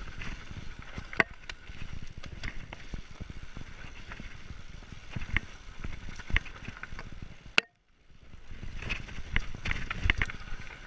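Mountain bike riding fast downhill over loose gravel and dirt: tyres crunching and rumbling, with frequent rattling clicks and knocks from the bike over the stones. About three-quarters through, a sharp click is followed by a split-second dropout of all sound.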